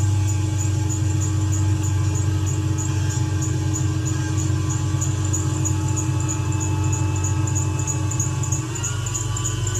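Mercedes-Benz C300 (W204) running after a cold start with a loud, steady hum from its secondary air injection pump, the faulty pump behind the owner's loud start-up noise. The level drops slightly near the end.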